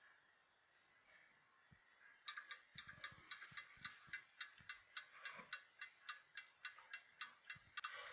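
Swiss mantel clock movement ticking rapidly, about five ticks a second, as it runs free without its pendulum. The ticking starts about two seconds in, with a few duller knocks among the ticks.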